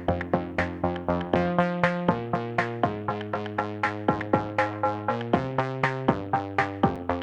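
Electronic background music: synthesizer chords over a steady drum-machine beat of about four strokes a second.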